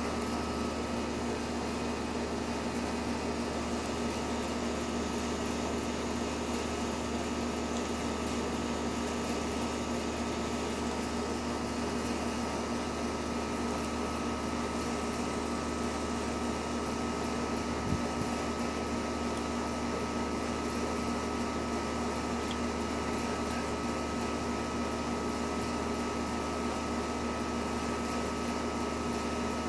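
Steady mechanical hum at a constant pitch, unchanging throughout, with a single brief knock about 18 seconds in.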